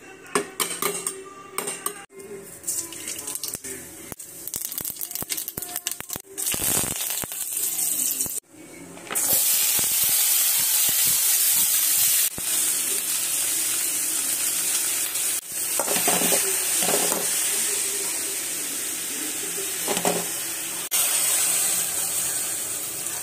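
A metal ladle scraping and clinking against a steel pot, then, from about nine seconds in, chopped flat beans sizzling steadily in a hot pan, with the spatula stirring now and then.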